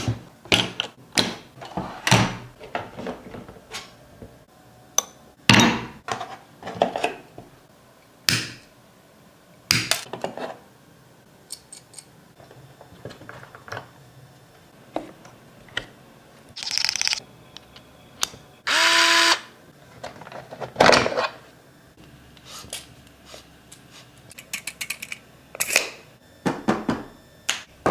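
Tools from a tool set being handled: a string of separate clicks, clacks and knocks. About two-thirds of the way through comes a rasp of about a second, then a short pitched whir.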